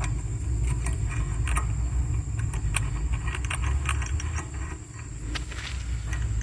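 Light, irregular metallic clicks and clinks from fitting the CV axle bolt into the front hub by hand, over a steady low rumble.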